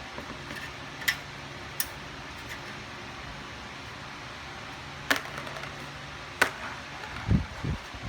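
Scattered sharp clicks and knocks from handling a metal toolbox, with a few dull thumps near the end, over a steady low hum.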